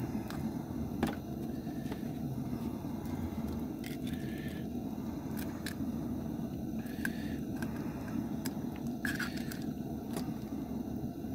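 Duck eggs frying in butter in a non-stick pan over a propane burner: a steady low burner rumble with scattered sizzling pops and light clicks.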